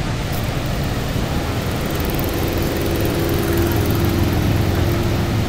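Steady roar of the Horseshoe Falls at Niagara. From about two seconds in, an engine hum with a low drone and a steady mid-pitched tone sits over it, then fades shortly before the end.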